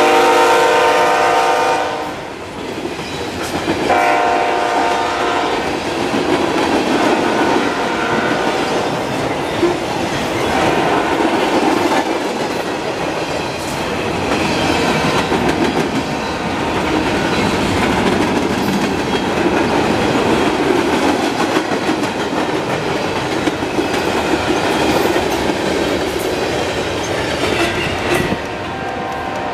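Canadian National freight train passing at speed: a locomotive horn chord sounds loudly and cuts off about two seconds in, then the freight cars' wheels rumble and clack over the rail joints. The horn sounds again more faintly from about four to nine seconds in and once more near the end.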